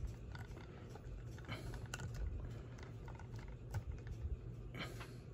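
Light plastic clicks and taps from a plastic action figure being handled and pressed into the seat of a toy cycle, a few scattered clicks every second or so.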